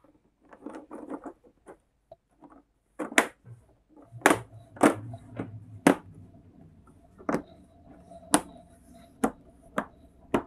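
An LED TV's cover being handled and fitted: soft handling noises, then from about three seconds in a series of about nine sharp knocks as the cover is set and pressed into place on the panel's body.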